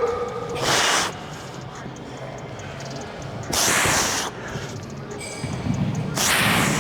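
A person breathing out hard three times, about three seconds apart, while pushing through a set of leg exercises.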